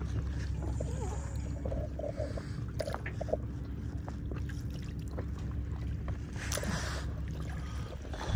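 Water sloshing and gurgling around a kayak as it is paddled, with a few light knocks about three seconds in and a brief splash just before the end, over a low steady rumble and a faint steady hum.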